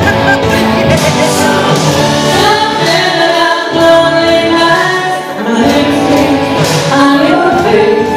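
A drag queen singing a pop song live into a handheld microphone over musical accompaniment, with long held notes.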